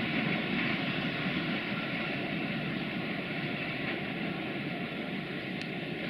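Freight train of box wagons rolling away on the track, a steady rumble of wheels and wagons that slowly fades as it recedes.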